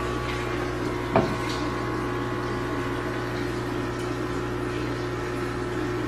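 Steady machine hum, with one sharp knock about a second in.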